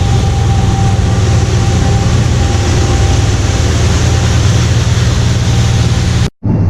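Heavy farm or road vehicle running steadily, a loud even engine rumble with a hiss of road or machine noise, broken by a sudden drop-out near the end.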